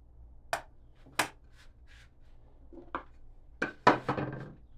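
Wood and hand tools being handled on a workbench: five sharp knocks and taps, a few seconds apart at first, then two close together near the end. The last knock is the loudest and rings briefly.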